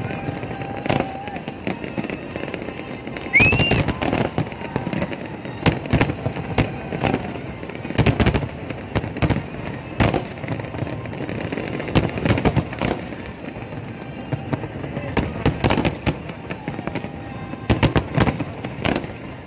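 Fireworks display: aerial shells bursting in a long irregular series of sharp bangs, packed into dense clusters in the middle and near the end.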